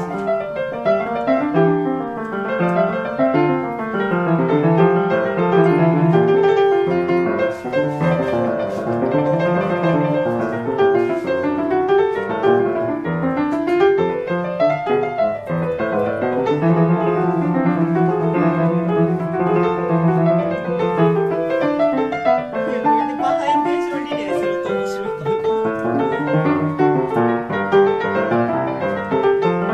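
1872 Rittmüller German upright piano being played in a continuous flowing piece of rolling broken chords over held bass notes. Its tone is thin, clear and very delicate, and the instrument is freshly serviced.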